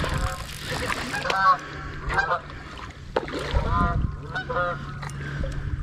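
A bird calling in short, arching, honk-like notes, about five calls spread over a few seconds.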